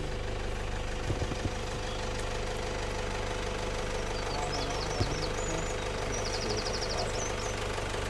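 Car engine running slowly with a steady hum as the vehicle creeps along, with faint high bird chirps and a short rapid trill between about four and seven seconds in.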